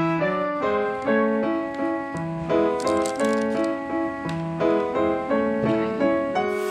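Instrumental background music led by piano: a melody of evenly paced notes.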